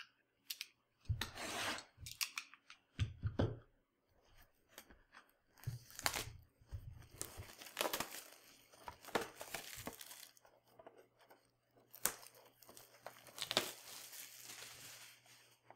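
Plastic shrink wrap being torn and crumpled off a sealed box of trading cards, in irregular bursts of tearing and crinkling with a few sharp crackles.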